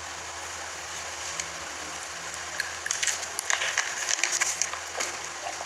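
Steady hiss and low hum of background room noise, with a few faint clicks and rustles between about three and five seconds in.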